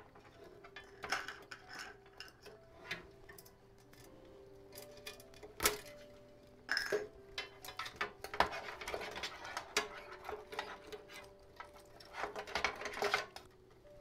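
Computer power-supply cables and their plastic connectors clattering and knocking against a metal PC case as they are handled, in irregular clicks and rattles. One sharper knock comes about six seconds in.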